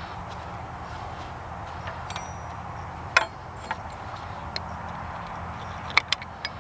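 Scattered sharp metallic clicks and clinks of a wrench and metal parts while a bolt is worked loose. The loudest comes about three seconds in and a quick pair near the end, over a steady hiss.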